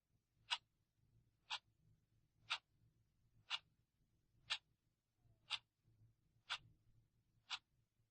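A clock ticking steadily once a second: eight sharp, evenly spaced ticks.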